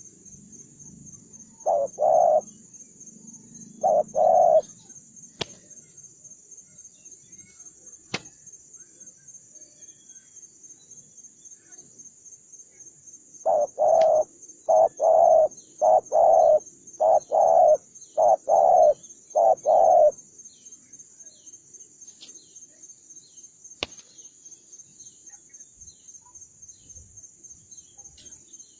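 Spotted dove cooing: two short double coos near the start, then a longer run of coos about halfway through.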